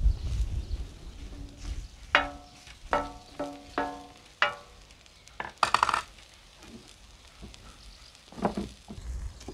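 A wooden spoon stirring sliced mushrooms on a cast-iron grill pan: a series of sharp, ringing clanks as it knocks the pan about two seconds in, then a short scrape. Near the end a knife cuts into a red bell pepper.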